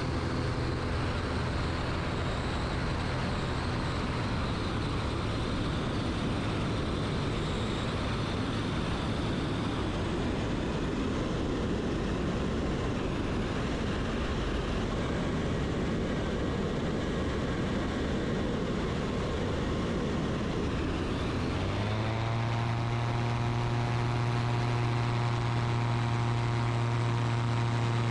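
Ultralight trike's engine and rear pusher propeller running in flight, under a steady rush of wind noise. About 22 seconds in, the engine note rises and then holds steady at a stronger, higher pitch.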